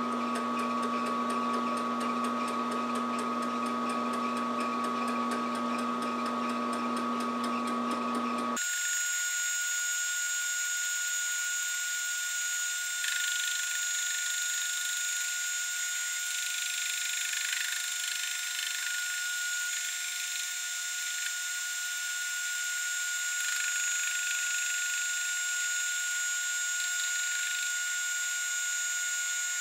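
Round column milling machine running steadily, its homemade fly cutter spinning and taking a light facing cut across a cast iron Cummins 5.9 exhaust manifold. The sound holds several constant tones; about eight seconds in its low hum drops out abruptly, leaving a thinner, higher sound.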